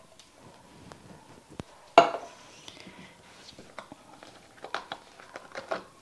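Kitchen clatter: one sharp metallic clank with a short ring about two seconds in, from the emptied tin can of diced tomatoes, then a scatter of light clicks and knocks as kitchen items are handled.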